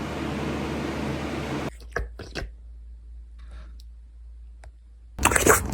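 Wet licking sounds, a few soft clicks at a time, after a second and a half of steady hiss; the clicks come faster and louder near the end.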